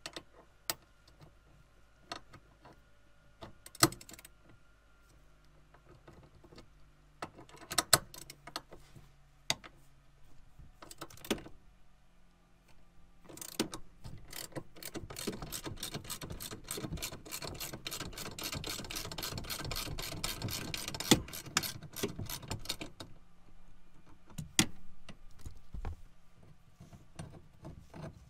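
Hand ratchet wrench clicking as screws under a truck's rear seat are backed out: scattered single clicks and taps of the tool on metal at first, then a long run of fast ratcheting midway, then a few more clicks.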